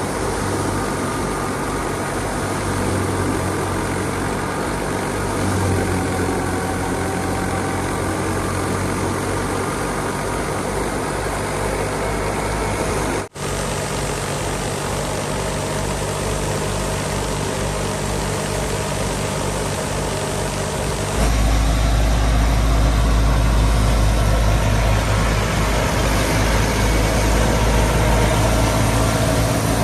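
Fiat 480 tractor's diesel engine running steadily while driving a wheat thresher. The sound drops out for an instant about a third of the way through and becomes louder and deeper about two-thirds of the way in.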